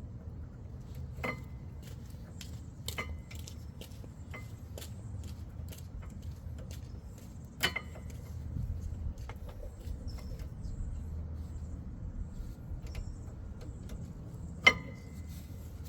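Metal clinks and taps as rear brake pads are handled and fitted into the caliper bracket. A few sharper clinks ring briefly, one about halfway through and the loudest near the end.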